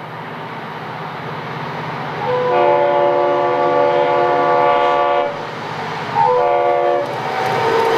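Air horn of an EMD SD40-2 diesel locomotive sounding one long blast, then a short one, in the pattern of a grade-crossing signal, over the steady rumble of the diesel engines. A clattering of wheels on rail rises near the end.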